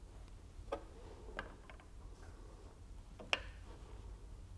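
A few faint clicks of a steel circlip being handled and pressed into place on a Hardy Spicer universal joint, the loudest about three seconds in.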